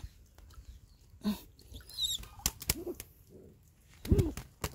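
A soaked pigeon flapping its wet wings while it is handled, heard as scattered flaps and scuffs with a few faint short calls. A brief low thud near the end is the loudest moment.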